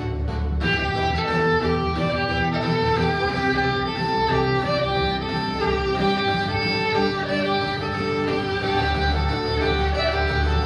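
Violin playing a melody of held notes, over an accompaniment with a deep bass line.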